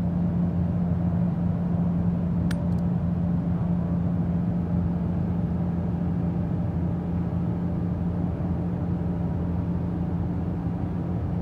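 Steady motor hum with a low rumble, and a single sharp click about two and a half seconds in.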